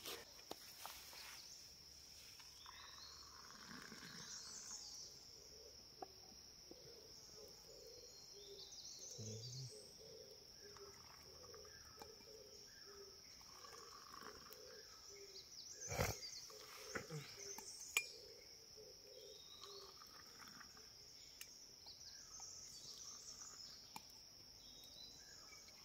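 Faint forest ambience: a steady high-pitched insect drone, with scattered chirps and calls over it. Two sharp knocks, the loudest sounds, come a couple of seconds apart past the middle.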